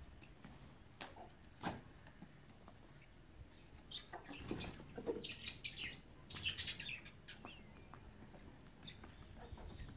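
Chickens feeding, with a run of short high chirping calls and clucks from about four to seven seconds in, and a few sharp taps before that.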